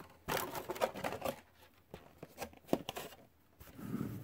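Plastic rustling and clicking as a hard-shell RC car body is lifted off its chassis: a dense run of clicks and rattles in the first second, a single sharper click about midway, and a soft rubbing near the end.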